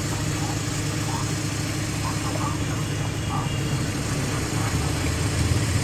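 An engine idling steadily, a low hum that grows slightly louder near the end, with faint voices in the background.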